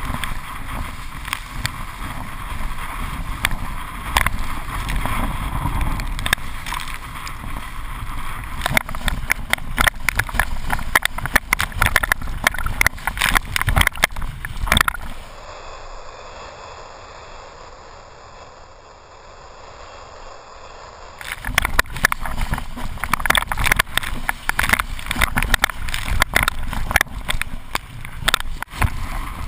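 Firemove 120 windsurf board planing fast over chop: the hull slaps rapidly on the water under a steady rush of spray and wind on the camera housing. About halfway through it turns quieter for several seconds, then the slapping picks up again.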